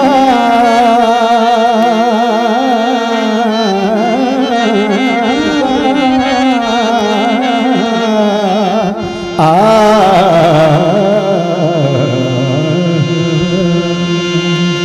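A man singing long, ornamented Punjabi folk lines with heavy vibrato into a microphone, over a steady instrumental accompaniment. After a brief break about nine seconds in, a new phrase comes in loudly on a high held note.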